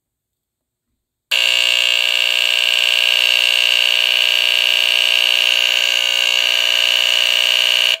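Edwards squealer horn of a Gentex-made NuTone photoelectric smoke detector sounding its alarm: a loud, very raspy buzz at a steady high pitch, modulated because the unit runs off AC mains. It starts about a second in and cuts off sharply at the end, set off by turning the sensitivity adjustment up as a test.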